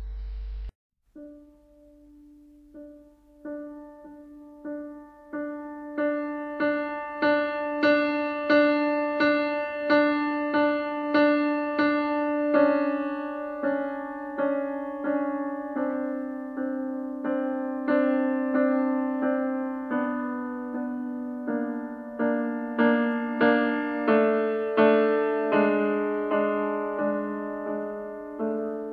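Background piano music: evenly spaced single notes, about two a second, starting faint and growing louder over the first few seconds.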